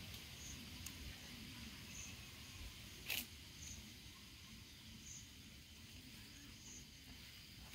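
Faint outdoor background with a high chirp repeating about every second and a half, and one sharp click about three seconds in.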